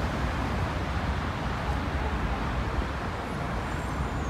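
Steady traffic noise from cars on a multi-lane highway, a continuous rush of tyres and engines with no single vehicle standing out.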